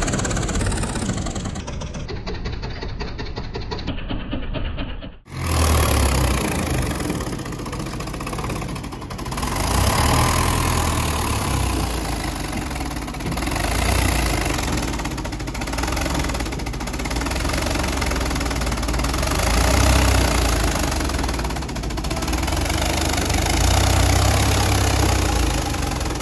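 Belarus tractor's diesel engine running under load as it pulls a fully loaded trailer, its low rumble swelling and easing several times. The sound cuts out briefly about five seconds in.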